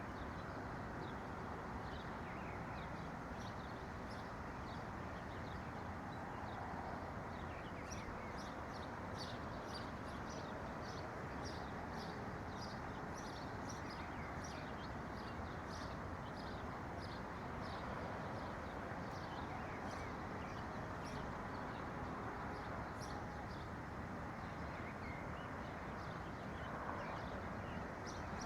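Small birds chirping, with a dense run of quick high notes from about eight seconds in until past twenty seconds, over a steady low background rush.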